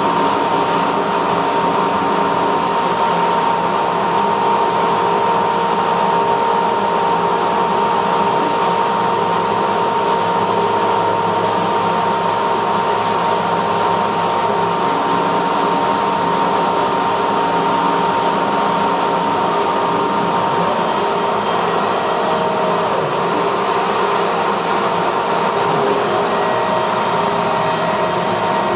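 Laguna SmartShop II CNC router running steadily while it cuts foam: a constant rushing motor noise with a steady high whine.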